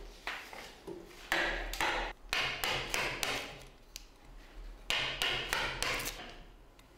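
Metal-headed hammer striking a wood-carving chisel, cutting chips from a roughed-out wooden statue. The sharp, irregular blows come in two runs, with a lull about four seconds in.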